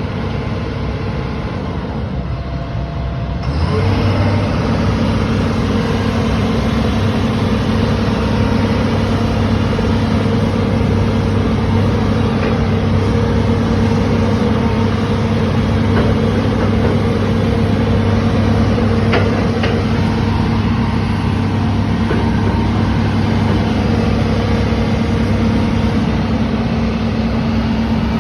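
Heavy diesel engine of a construction machine running steadily, getting louder about three and a half seconds in and then holding an even, low drone.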